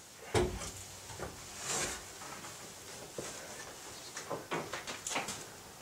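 Handling noises from fitting the windscreen and its rubber seal into a Mercedes 220 (W111). A knock comes shortly after the start, a brief rubbing hiss near two seconds, and a run of light clicks and taps about four to five seconds in.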